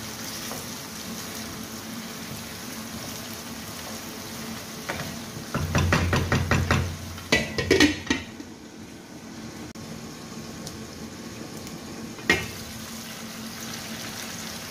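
Chicken pieces frying in oil in a non-stick pan, a steady sizzle. About six seconds in come several quick scrapes of a wooden spatula, then a clatter as a glass lid goes onto the pan, after which the sizzle is duller and quieter. A single knock of the lid about twelve seconds in.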